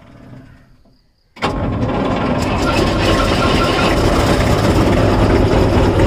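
Jessop road roller's engine being started with the key: it fires about a second and a half in and runs on steadily.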